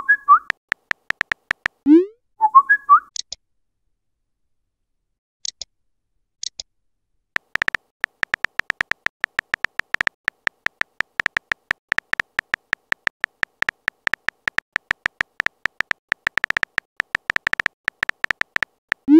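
Smartphone keyboard key-click sounds as a message is typed, a fast run of ticks, with short rising chat blips as messages are sent near the start and again about two seconds in. After a few seconds of near pause the typing clicks resume steadily from about seven seconds in.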